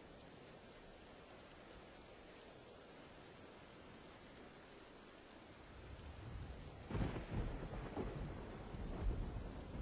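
Faint steady rain, then from about six seconds in a low rumble of thunder builds and swells a few times.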